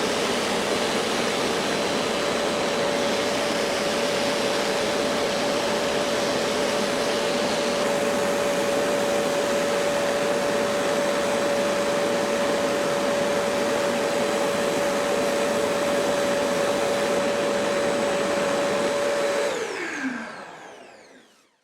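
Bench-top drill press motor running at a steady speed with a constant whine, then switched off about two-thirds of the way through the last few seconds: the whine falls in pitch as it winds down and fades out.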